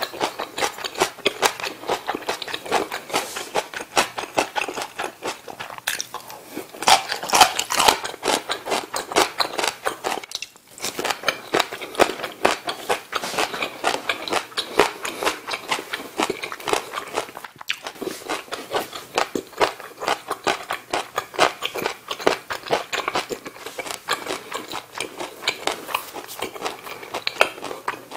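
Close-miked chewing: a person eating with rapid crunching and wet mouth clicks, pausing briefly about ten seconds in.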